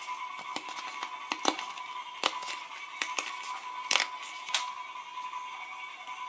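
A paper sticker packet being torn open by hand and the stickers inside pulled out: rustling and crinkling paper with several sharp snaps, the loudest about four seconds in.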